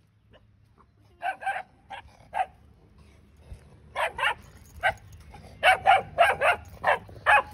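A dog barking: about a dozen short, sharp barks in three bursts, the last burst the loudest and quickest.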